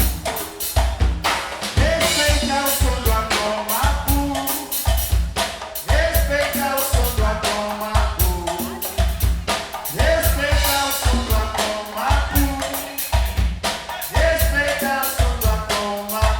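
Live band playing an instrumental passage driven by a drum kit: steady bass-drum pulses with snare and rimshot strokes, and a melodic line sliding up and down over the beat.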